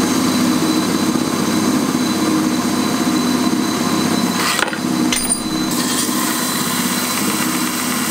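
Stationary edge belt sander running steadily while small steel flat-bar pieces are pressed against the moving sanding belt and ground, with two short louder scrapes around the middle.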